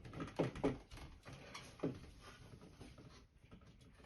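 Small clicks and rustles of cable being handled and fed into the plastic lever terminals of an MK Rapid Fix socket, mostly in the first two seconds and fainter after.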